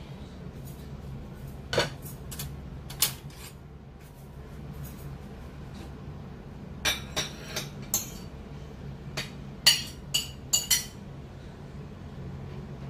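Ceramic plates and utensils clinking on a kitchen counter as food is moved onto a small plate, in scattered sharp clinks: a few in the first three seconds, a cluster around seven to eight seconds in, and the loudest around ten seconds in. A steady low hum runs underneath.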